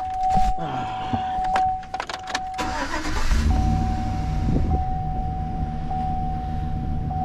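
2014 Chevy Express 1500 van started up: a steady warning-chime tone sounds from the dash, the starter cranks briefly about three seconds in, and the engine catches and settles into a steady idle while the tone continues.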